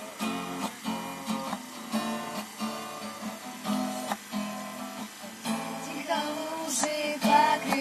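Acoustic guitar strumming chords in a steady rhythm as a song's intro. A sliding melody line joins over the chords about six seconds in.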